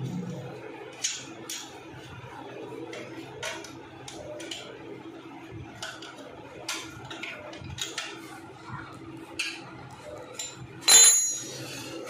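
Metal hand tools clicking and clinking as an open-end spanner works a bolt at the rear of a motorcycle, with scattered light knocks, then one loud ringing metal clank near the end.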